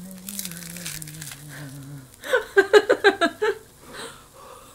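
Human vocal sounds: a low hummed note that slides down in small steps for about two seconds, then a quick run of short, high-pitched voiced bursts, the loudest part, about two seconds in.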